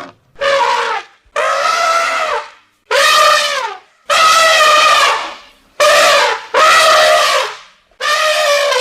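Elephant trumpeting: a series of about seven calls, each around a second long with short gaps between, several sliding down in pitch as they end.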